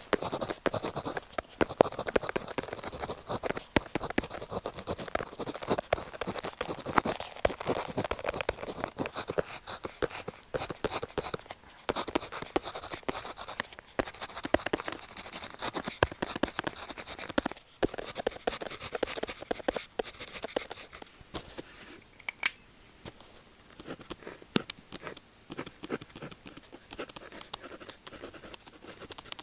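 Pen tip scratching across paper in quick, close-set strokes, busier through the first two-thirds and sparser near the end, with one sharper tick about two-thirds of the way through.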